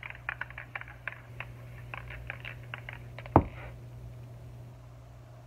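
Thin paper pattern rustling and crinkling as it is handled and laid out on poster board, with one sharp thump about three and a half seconds in; a low steady hum runs underneath.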